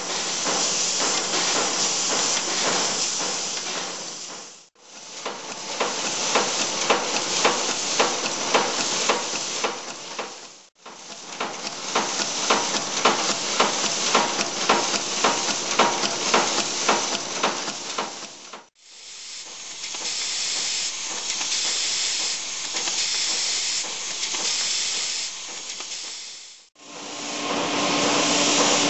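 Brass rifle-case manufacturing machinery in a run of short clips that cut off abruptly one after another: brass cases rattling in a case feeder, then a press working with regular strokes about two a second, then a steady clatter of cases, with a low hum near the end.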